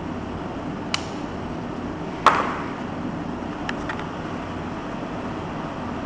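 Small stainless steel multi-function pocket knife handled: a light metal click, then about two seconds in one sharp metallic clack with a brief ring, then two or three faint ticks, over a steady hiss.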